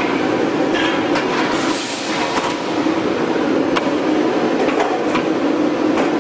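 Welded steel tube roll forming mill line running: a steady mechanical hum with scattered metal clicks and knocks. A short high squeal sounds about two seconds in.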